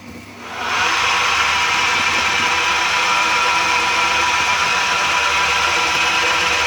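Homemade wood lathe driven by a salvaged washing-machine motor switched on: it spins up over about the first second, then runs steadily with a hum and whine.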